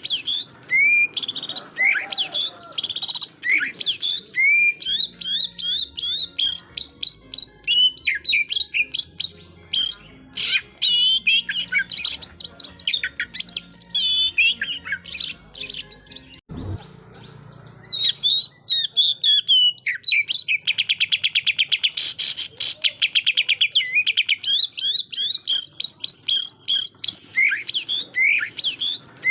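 Oriental magpie-robin singing its fast, varied 'tembakan' song of sharp whistles and chirps, an aggressive song that provokes rival males. A rapid buzzing trill runs for a few seconds about two-thirds through, and the song pauses briefly after a soft thump near the middle.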